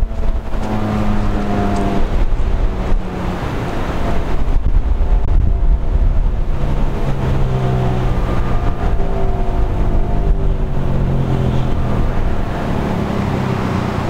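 Federal Signal 2001-130 electromechanical siren winding down, its tone falling slowly after the test, under heavy wind noise on the microphone.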